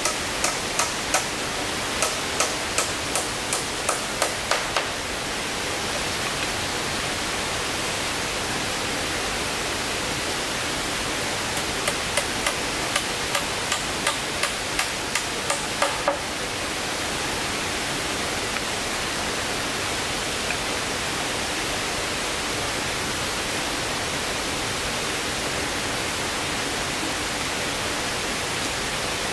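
Two runs of sharp, regular strikes from a hand tool, about three a second, one at the start and another about twelve seconds in, over a steady hiss.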